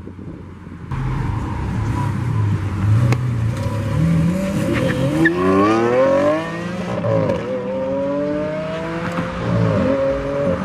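Lamborghini Aventador Roadster's V12 pulling away, then accelerating hard. The revs climb steeply, drop once at an upshift about halfway through, and climb again.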